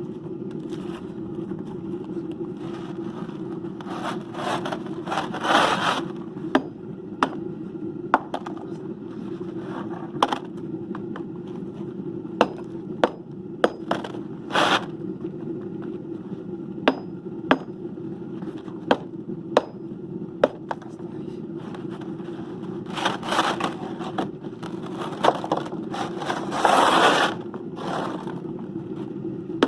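Steady low roar from the aluminium melting furnace, with scraping and a scattering of sharp knocks from tools working at the crucible. The scraping grows louder about five seconds in and again near the end.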